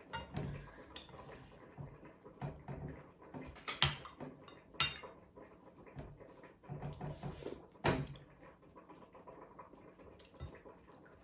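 Metal spoon and fork scraping and clinking on ceramic plate and bowl while eating, with soft chewing sounds. A few sharper clinks stand out, the loudest about four and eight seconds in.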